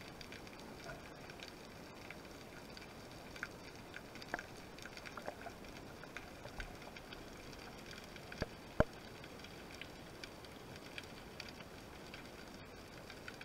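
Underwater ambience over a rocky reef: a faint steady hiss with scattered crackling clicks, and two louder sharp clicks about eight and a half seconds in.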